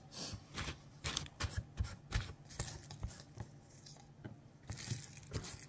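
Irregular light clicks, knocks and scrapes of kitchen dishes and utensils being handled while the counter is tidied.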